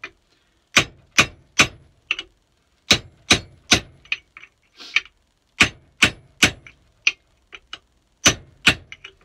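Ball peen hammer striking a stainless steel drift to drive the old handle stub out of a splitting maul head: sharp metal-on-metal blows in quick runs of about three, with lighter taps in between.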